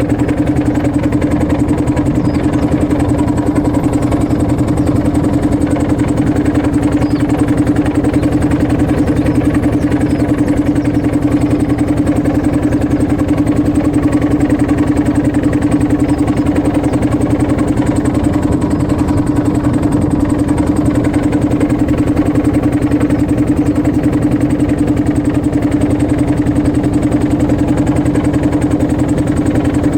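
A motorboat's engine running at a steady speed, a loud, even hum with no change in pitch.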